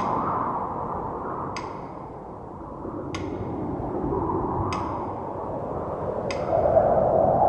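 Ambient music: a sharp, briefly ringing ping repeats about every second and a half over a low drone that swells and fades.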